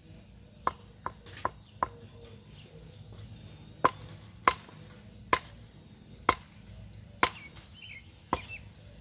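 A series of about ten sharp knocking strikes, four in quick succession at first and then about one a second, over a faint steady chirring of insects.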